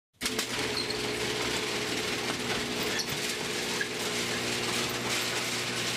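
Mini milling machine running steadily, its motor and gear drive giving a constant hum with an even hiss over it.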